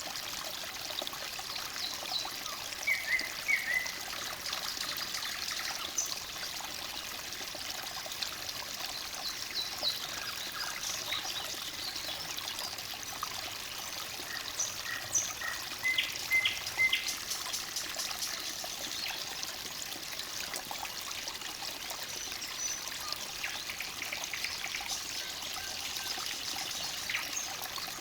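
Forest stream babbling steadily, with short bird chirps over it, most clearly about three seconds in and again in a cluster around the middle.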